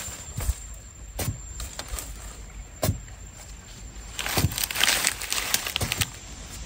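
A digging stick jabbed into hard, dry soil: a few separate knocks, then, about four seconds in, a couple of seconds of quick scraping and scratching as the hole is dug out.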